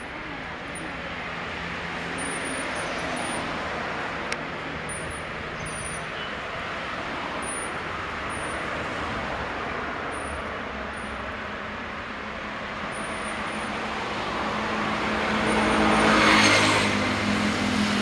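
Road traffic passing on a busy city road: a steady rush of tyres and engines, with one vehicle passing close and louder near the end.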